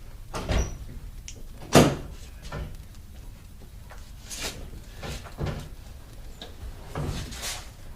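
Several separate knocks and clunks of handling around a car, the sharpest a loud clack about two seconds in; the engine is not running yet.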